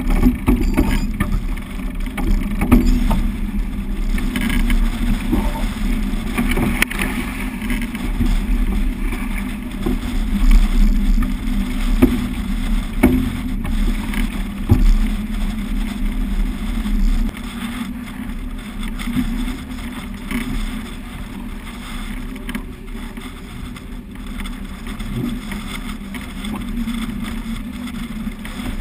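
Water rushing and splashing along the hull of a sailing yacht heeled in a stiff breeze, with wind buffeting the microphone and occasional knocks. The low wind rumble drops away a little past halfway.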